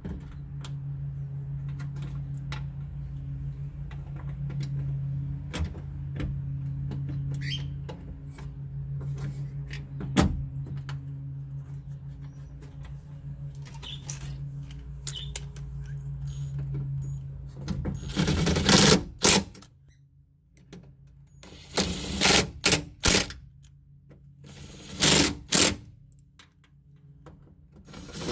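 A steady low hum with scattered small metallic clicks, then four short bursts of a power tool running, each about a second long, tightening the mounting bolts of a window regulator in a car door.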